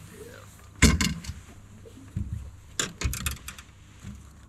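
Sharp knocks and light metallic rattles of fishing gear being handled on a boat deck, as a just-landed bream is worked out of the landing net. The loudest knock comes about a second in, with a few more knocks and thuds two to three seconds in.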